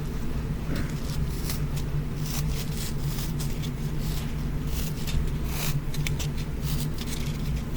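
Faint, irregular crackling and rustling of a crushable foam block being pressed and handled, over a steady low hum.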